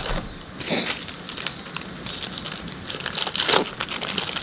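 Paper wrapper crinkling and rustling as it is handled and unfolded by hand, with a few louder rustles about a second in and again past three seconds.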